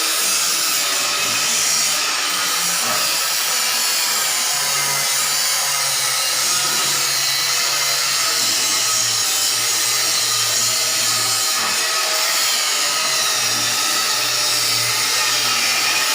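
Heavy machinery running steadily with a loud, even hissing and grinding noise and a faint low hum underneath, with no pauses.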